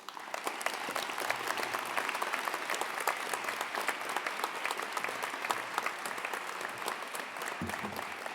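Audience applauding: dense, steady clapping from many hands that breaks out at once and keeps going.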